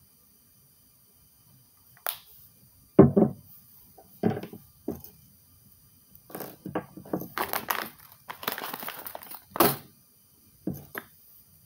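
Irregular knocks, clicks and rustling from small tools and objects being handled on a tabletop, with the loudest knock about three seconds in and a denser stretch of handling noise in the second half.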